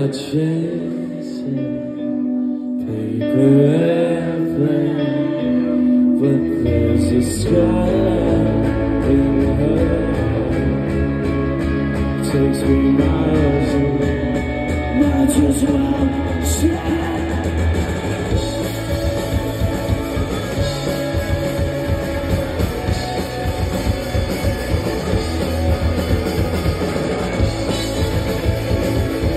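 Live rock band with a singer, at first over guitar, then the full band with drums comes in about six seconds in and plays on at full volume.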